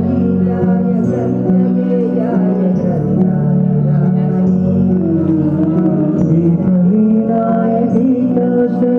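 Music: a song with held melody notes over a bass line that steps to a new note every couple of seconds.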